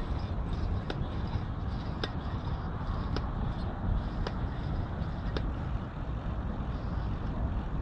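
Bicycle riding along a paved path: steady wind and rolling rumble on the bike's microphone, with a sharp click about once a second.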